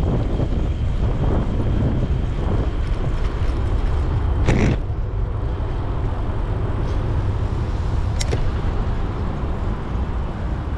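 Wind buffeting the microphone of a GoPro action camera on a moving bicycle, a steady low rumble, with city traffic around it. A short burst of hiss comes about four and a half seconds in, and a thin click comes near eight seconds.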